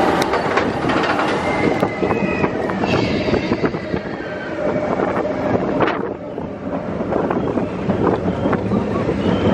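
Expedition Everest roller coaster train running along its steel track: a continuous rumble and clatter of the wheels, with high squeals of wheels against the rails.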